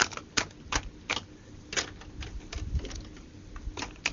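Irregular light clicks and taps, about a dozen over four seconds: handling noise from plastic toy figures and the recording device.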